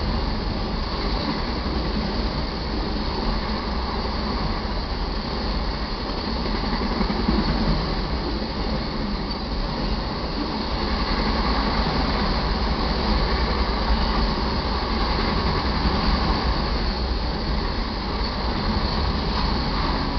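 Autorack cars of a freight train rolling past: a steady, continuous rumble and rattle of steel wheels on the rails.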